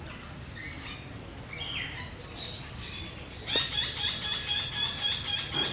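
Bird calling: a few faint high chirps, then about three and a half seconds in a loud, rapid run of repeated high chirps.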